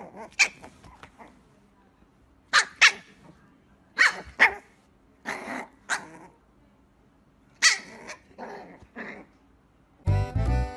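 Small fluffy puppy barking in short, high yaps, several in quick pairs with quiet gaps between, and a few softer ones near the end. Music starts just before the end.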